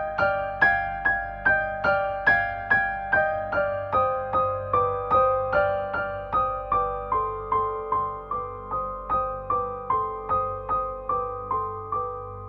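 Background music: a gentle keyboard melody of evenly spaced single notes, each struck and fading, a little over two a second, the tune stepping lower about halfway through.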